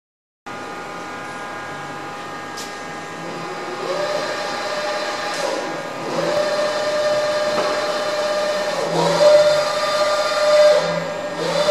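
Anayak VH-1800 CNC bed milling machine running, with a steady hum of many tones. From about three and a half seconds in, an axis drive repeatedly whines up in pitch, holds while the axis travels, and winds down, four times over, the whine getting louder.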